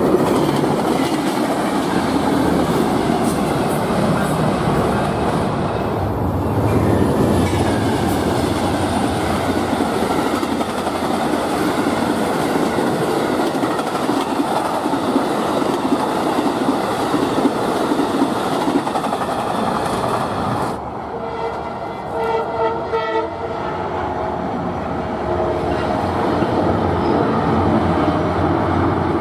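Amtrak passenger train passing close, a steady rumble and clatter of its coach wheels on the rails. About two-thirds of the way in it changes abruptly to a Tri-Rail commuter train crossing a bridge farther off: quieter, with several steady tones over the rumble.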